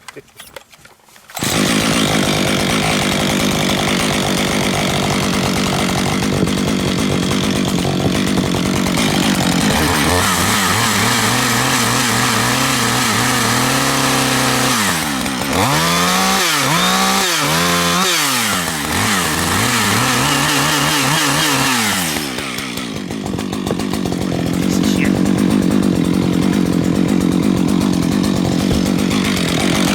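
Gasoline two-stroke chainsaw cutting a log at full throttle, starting about a second and a half in. Midway the engine pitch sags and recovers several times as the saw is pushed hard into the wood, near the point of stalling, then it runs back up to high revs.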